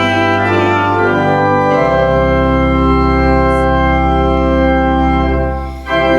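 Organ playing held chords of church music, the bass moving to a new note about two seconds in, with a brief dip in loudness near the end before the next chord.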